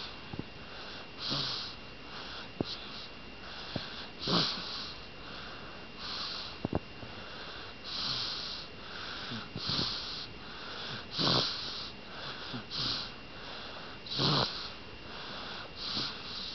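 Baby's snuffly, wheezy breathing close by: short noisy breaths about every second and a half to two seconds, with a few faint clicks between them.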